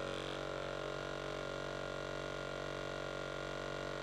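Roffie RM10 percussion massage gun running at a steady speed: an even motor hum with several pitches held level.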